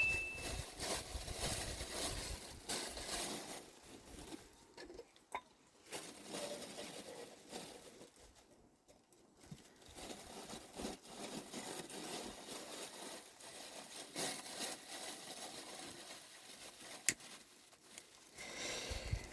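Irregular rustling and crackling, as of things being handled, with a couple of sharp clicks.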